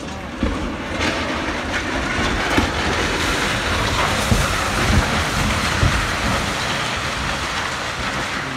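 Rubble crashing down the side of a tower block under a high-reach demolition excavator: a long rumbling, clattering cascade with repeated heavy thuds.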